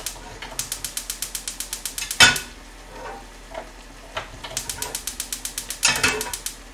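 Gas stove burner being lit: the piezo igniter clicks rapidly, about nine times a second, in two runs. Each run ends in a sharp louder burst.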